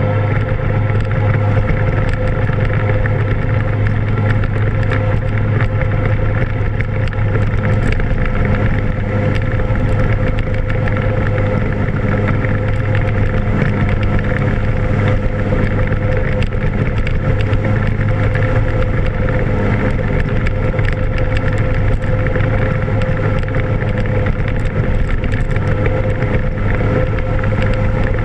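Naturally aspirated Mazda 13B rotary engine of a mini jet boat running at a steady speed, loud and even, with no revving up or down.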